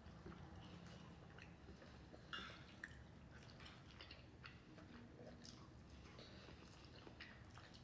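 Faint eating sounds: soft chewing and small wet mouth clicks, scattered through, with a slightly louder click about two and a half seconds in.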